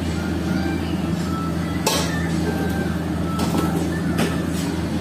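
Steady low hum of commercial kitchen machinery, with a few brief noises about two, three and a half and four seconds in.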